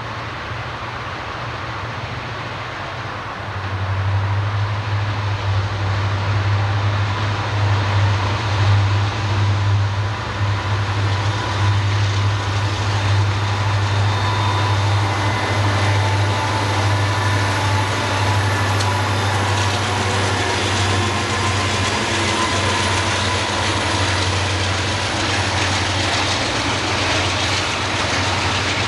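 Diesel-hauled freight train passing close by: a steady low rumble that grows louder about three and a half seconds in and holds, with clanking and wheel clatter as the train crosses the junction's switches.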